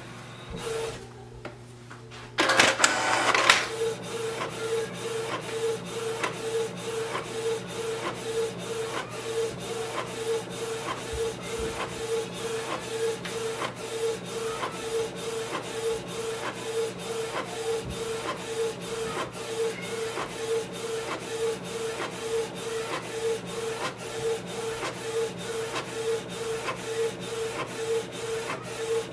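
Canon Pixma TS3720 inkjet printer printing a page. A louder rush of mechanism noise comes about two and a half seconds in as printing starts. Then the print-head carriage runs back and forth in a steady mechanical rhythm, pulsing about twice a second.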